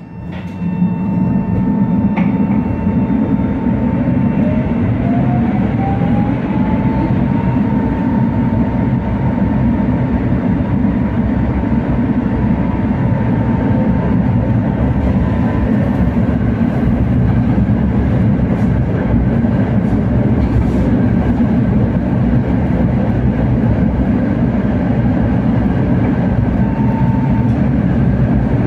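Tatra T3R.PLF tram running along the rails, a steady rumble of wheels and running gear that comes up about half a second in. A whine rises in pitch over a few seconds, then holds steady as the tram gets up to speed.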